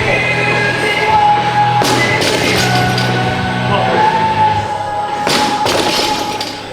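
Background music with sustained melody notes over a steady bass line, with two sharp hits about two and five seconds in.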